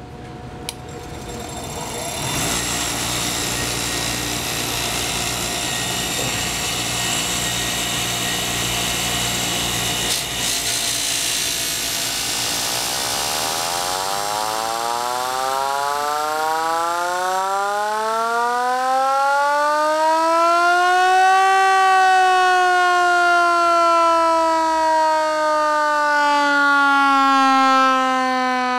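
A Ryobi 6-inch bench grinder clicks on and spins up to a steady hum. Then an old Harley-Davidson friction-drive police siren, its drive shaft spun by the grinder, winds up into a rising howl that peaks about three-quarters of the way through and then slowly falls in pitch.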